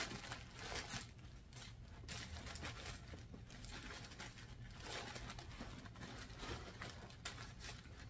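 White tissue paper packing inside a new leather tote crinkling and rustling in quiet, irregular bursts as it is handled.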